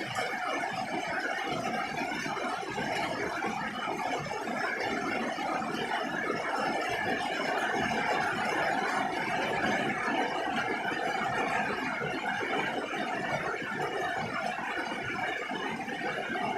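Rain falling steadily on a roof, a dense even patter of drops.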